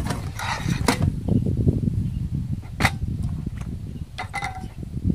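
Metal camp cookware and a gas canister being handled on a table: several clinks and knocks, with a sharp click about three seconds in and a short ringing clatter a little after four seconds. A steady low rumble runs underneath.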